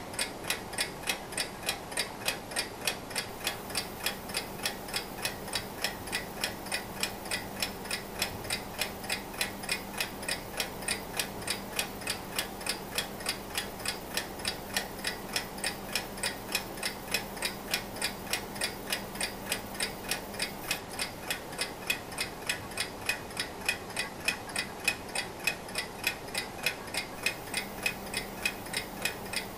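Antique 1920s–30s Junghans mechanical alarm clock ticking steadily, with even, rapid ticks about three a second.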